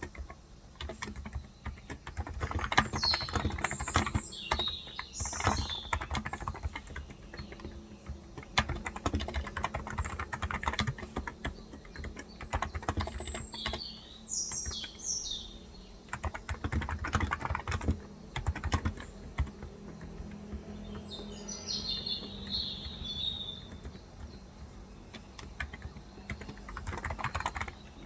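Typing on a Cox Endeavor electrostatic capacitive (contactless) tenkeyless keyboard with 35 g switches, in uneven runs of keystrokes. Birds chirp in the background in three short spells, about three seconds in, around thirteen seconds and around twenty-one seconds.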